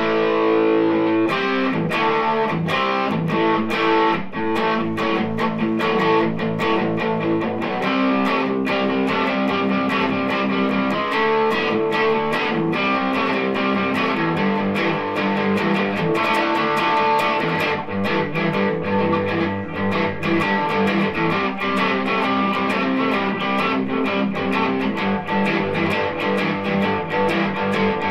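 ESP LTD EC-1000 electric guitar played through an overdriven amp: a continuous riff of fast picked notes and chords with a distorted tone.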